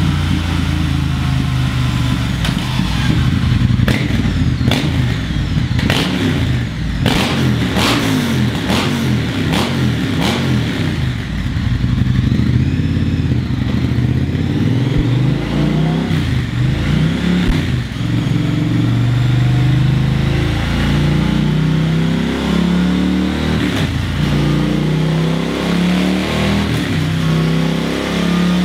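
A Triumph Thruxton 1200's parallel-twin engine revving up and down on a rolling-road dyno. It is heard first through the stock exhaust, then partway through with a Scorpion de-cat header kit fitted. A string of sharp cracks comes in the first half.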